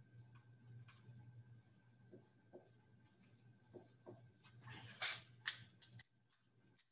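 Marker scratching and squeaking on a whiteboard in short strokes, loudest in a quick cluster about five seconds in. A faint steady room hum sits underneath.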